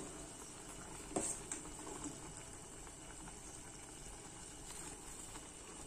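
Noodles boiling in water in a steel pot, a steady low hiss, with a couple of light knocks of a steel spoon against the pot about a second in.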